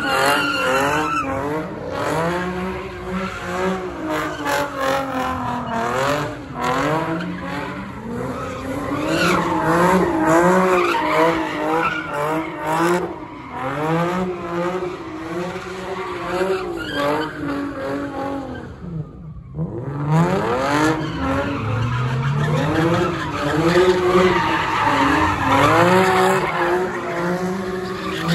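A car drifting in donuts: its engine revs hard, the pitch swinging up and down again and again, while the tyres squeal and skid on the pavement. About two-thirds through the revs drop briefly, then climb again.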